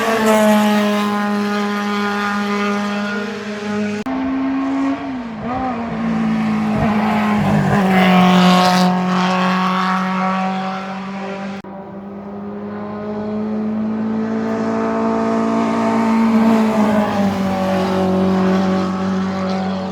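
Historic racing cars climbing a hill-climb stage at high revs, engines held at a steady high pitch as each one passes. The sound changes abruptly about four seconds in and again near twelve seconds as one car gives way to the next. There is a brief dip in engine pitch around five seconds.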